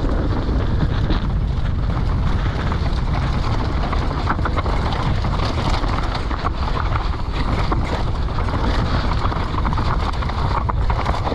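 Wind rushing over the microphone and the steady rumble of a downhill mountain bike's tyres on a dirt trail, with frequent small clicks and knocks as the bike rattles over bumps.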